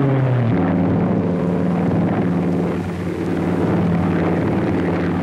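Piston-engine propeller aircraft in flight, its engine running with a steady low drone that wavers slightly in pitch.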